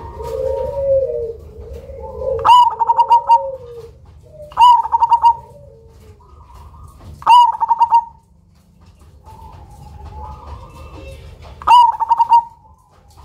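A black cemani zebra dove (perkutut) singing: four loud, rapidly trilled coo phrases, each under a second long, spaced a few seconds apart. Softer, lower cooing runs under the first few seconds.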